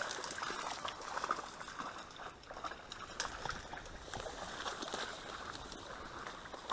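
Faint rustling and brushing of dry reed stems with soft sloshing of shallow marsh water, as someone moves through a flooded reed bed; small scattered crackles.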